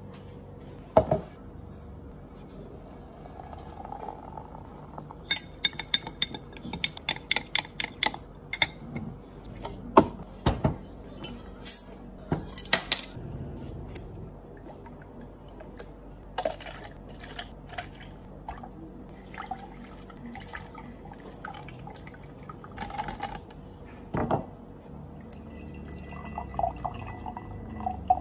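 Drink-making handling sounds: sharp clicks and knocks of plastic cups and utensils on the counter, and scissors snipping open a juice carton. Near the end, tea is poured through a mesh strainer into a glass jug, and the pour's pitch rises as the jug fills.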